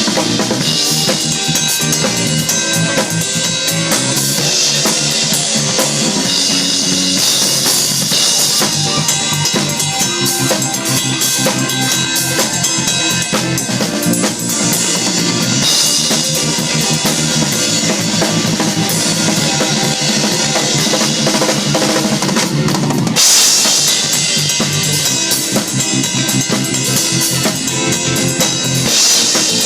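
Acoustic drum kit played through a song with a band, with bass drum, snare and cymbals driving under sustained pitched instruments.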